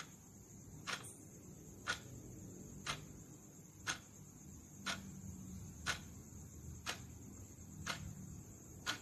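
Countdown timer ticking, one sharp tick each second, over a faint steady high-pitched hiss.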